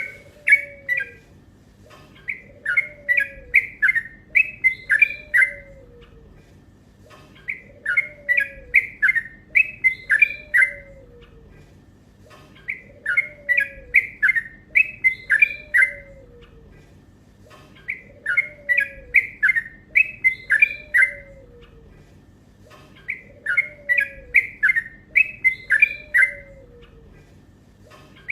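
Yellow-vented bulbul (trucuk) singing a fast, chattering song: bursts of rapid bubbling notes, each about three to four seconds long, repeated at an even pace with short pauses between them.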